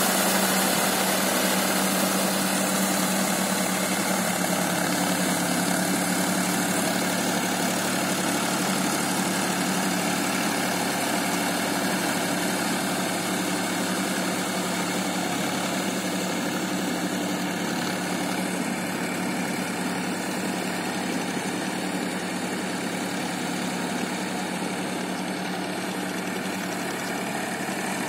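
Powertrac tractor's diesel engine running steadily under load while it drives a rotavator through flooded paddy mud, slowly growing fainter.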